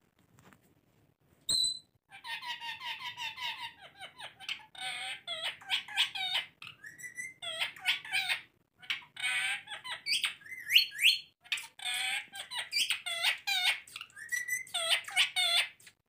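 Rose-ringed (Indian ringneck) parakeets calling and chattering in rapid, repeated screeches, with a few rising notes among them. The chatter is preceded by a single short, clear whistle about a second and a half in.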